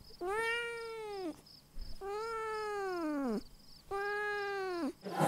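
Domestic cat meowing three times: long, drawn-out meows of about a second each, every one rising and then falling in pitch.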